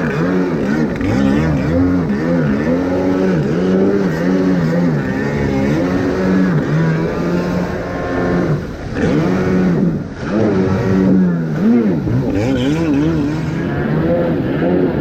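Kawasaki X2 stand-up jet ski's 650cc two-stroke engine running through an aftermarket waterbox exhaust, its pitch rising and falling with the throttle. It drops off briefly twice, about nine and ten seconds in.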